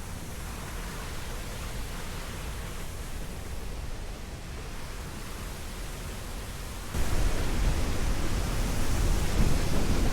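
Waterfall and fast current rushing as a steady wash of noise, stepping up suddenly and fuller about seven seconds in.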